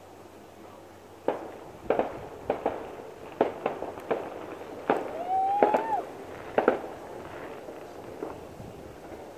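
Fireworks going off: a string of about ten sharp bangs over roughly five seconds, with a brief rising whistle in the middle.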